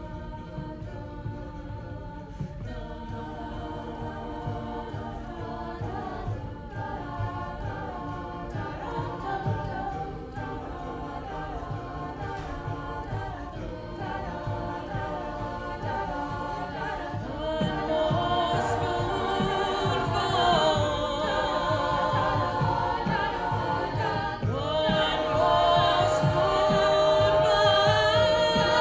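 A cappella vocal group singing in close harmony with no instruments. The singing builds louder over the passage, and near the end one high note is held over the other voices.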